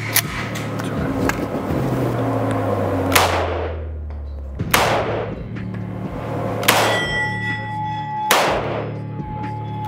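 Stechkin APS machine pistol firing 9x18mm Makarov rounds in single shots, about five in all, spaced a second and a half to two seconds apart, each shot ringing on in the indoor range.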